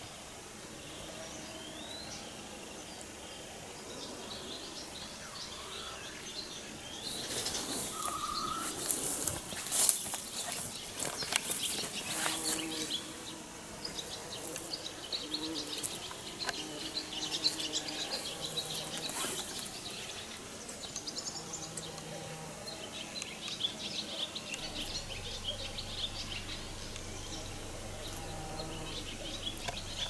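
Footsteps swishing and crackling through long grass and garden growth, beginning about seven seconds in and going on in uneven strokes, with small birds chirping in the background.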